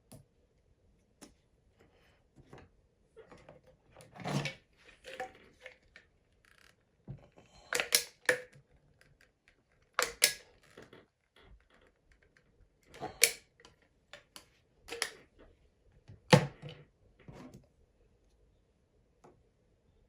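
Irregular sharp clicks, taps and short scrapes, about a dozen, from hands working on car parts during a bolt-on install, with quiet gaps between them.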